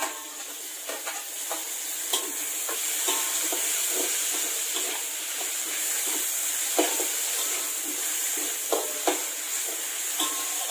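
Chopped tomatoes going into hot oil with frying onions in an aluminium wok, sizzling, the sizzle growing louder over the first few seconds. A metal spatula stirs the pan, knocking and scraping against the wok several times.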